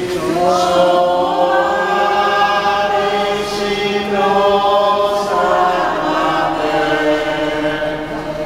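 A church congregation singing a slow Marian hymn together, each note held for a second or two.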